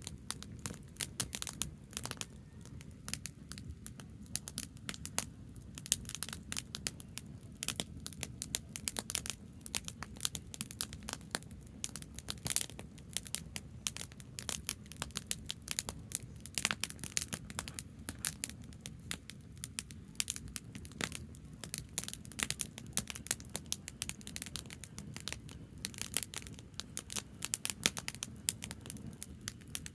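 Branches burning in an open wood fire, crackling and popping with irregular sharp snaps throughout, over a steady low rumble.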